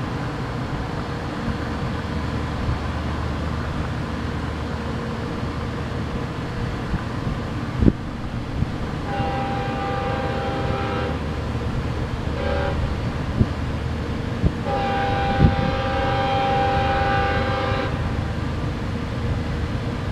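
Diesel locomotive horn of an approaching freight train sounding in the distance: a long blast, a short one, then a longer one, over a steady low rumble, with a couple of sharp knocks.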